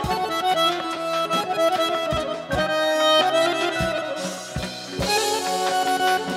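Piano accordion playing a melody in the Segah mode, with short low thumps sounding now and then under the notes.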